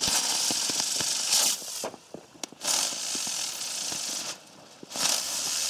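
Small jumping ground firework spraying sparks: three hissing spurts of about two seconds each, with short gaps between them and scattered crackles.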